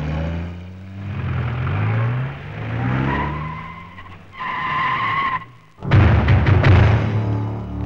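Vehicle engines revving up several times as they drive in, with tyres squealing as they brake, once briefly and then for about a second near the middle. About six seconds in, a loud low pounding takes over.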